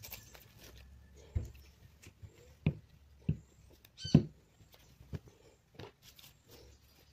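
Produce being taken out of cloth shopping bags and set down on a wooden table: scattered soft thumps and knocks with cloth handling, about half a dozen, the loudest about four seconds in.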